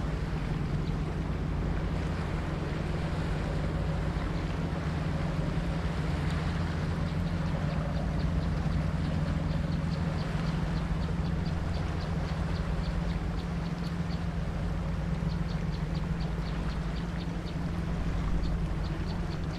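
Engine of a river sand-carrying boat running with a steady low drone. Partway through, a faint, fast, regular ticking joins it.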